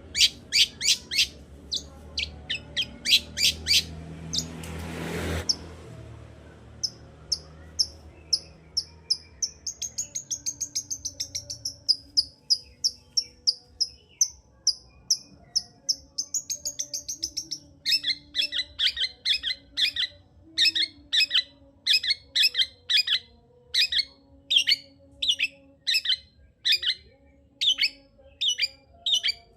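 Long-tailed shrike (cendet) singing: a run of sharp repeated notes, then a fast, high chattering run, then louder harsh calls repeated at a steady pace through the second half. A brief rushing hiss swells and fades about five seconds in.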